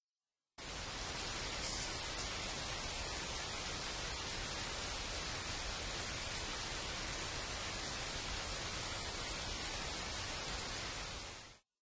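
Steady rain falling, an even hiss that starts abruptly about half a second in and cuts off just as abruptly near the end.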